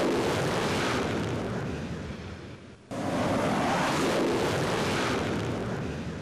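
Explosion of a jet airliner crashing into a World Trade Center tower: a broad rush of noise fades away, then breaks in suddenly again about three seconds in and fades out once more.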